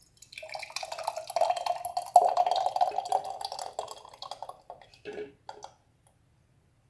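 Thick blended raisin paste pouring and plopping from a glass blender bowl into a glass jar for about four and a half seconds. Two last short splats follow about five seconds in.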